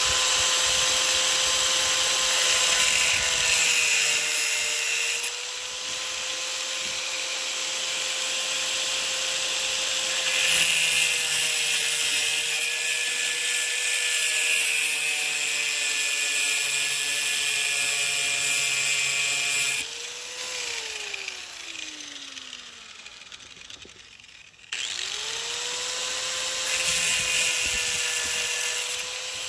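Angle grinder cutting the threaded end off a steel bolt held in a vise: a steady motor whine under a harsh grinding hiss. About 20 seconds in it is switched off and winds down with falling pitch, then it starts up again about five seconds later.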